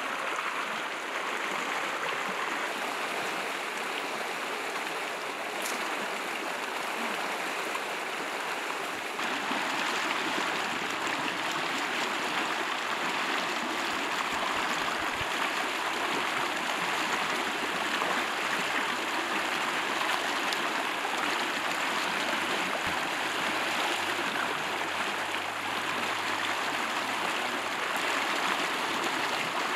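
Fast-flowing river water rushing steadily, a little louder from about nine seconds in.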